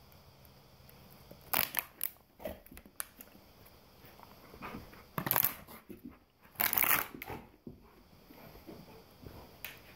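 Thin plastic water bottle crunching and crackling in a dog's jaws, in several loud separate bursts with quieter stretches between them.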